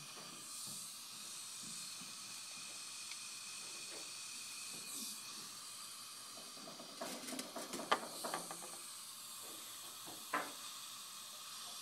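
Steady hiss of dental suction running. Small sharp clicks and taps from metal tweezers handling the magnet pair come in a quick cluster about seven to eight and a half seconds in, and once more about ten seconds in.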